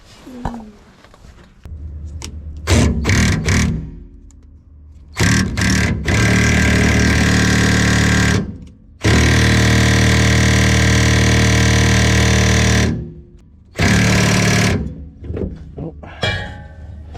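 A power tool run in four bursts, the two longest about three to four seconds each, over a steady low hum. It is working loose a fuel tank strap bolt.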